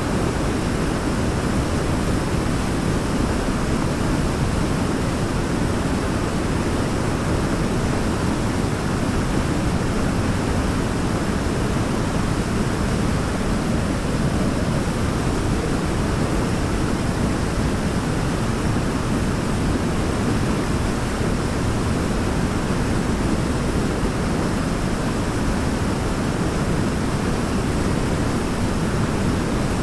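Waterfall: water pouring and splashing in a steady, deep, even rush.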